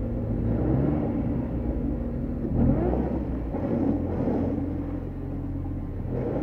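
Lada VAZ 21099 car engine running with the car stuck in a bog, revving up briefly about two and a half seconds in.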